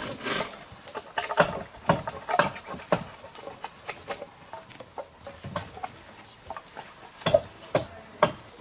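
Knives shaving wood as canoe paddles are carved by hand: short, irregular scraping strokes, a couple a second.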